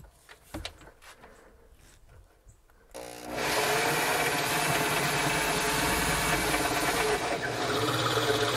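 Corded electric drill with a large Forstner bit boring a faucet hole into a wooden countertop. It starts about three seconds in and then runs steadily, after a few faint handling clicks.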